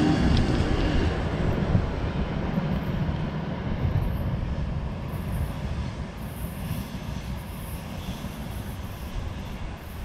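ES1 Lastochka electric multiple unit (Siemens Desiro RUS) running away along the track. Its motor whine dies out about a second in, and its rolling noise fades steadily into the distance.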